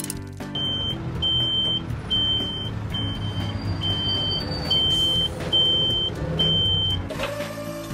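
A high electronic beeper sounding about eight times, roughly one beep every 0.8 seconds, over a steady low rumble.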